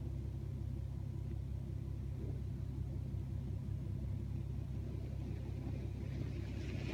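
Strong wind rumbling on the microphone: a steady low rumble, with a faint higher hiss coming in near the end.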